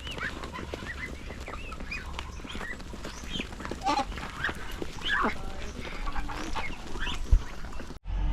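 A flock of domestic ducks quacking, many short overlapping calls, as more of them crowd in toward the people feeding them. The calls cut off abruptly just before the end.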